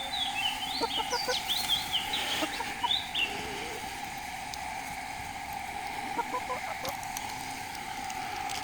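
Chickens calling: a quick run of high, chirping peeps in the first three seconds, over a steady background drone.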